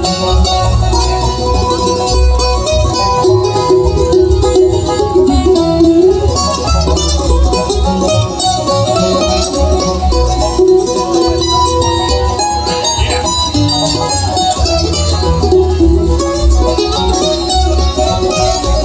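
Live bluegrass band playing an instrumental break between verses, with banjo picking up front over the rest of the band.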